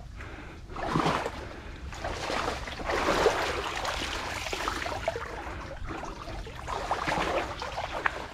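Shallow muddy water sloshing and splashing as people wade through a mangrove, in an uneven run of swishes.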